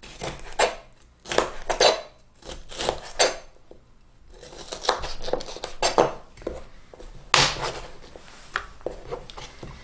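Kitchen knife slicing a green bell pepper into thin strips on a plastic cutting board: irregular sharp taps of the blade against the board, with a louder knock about seven seconds in.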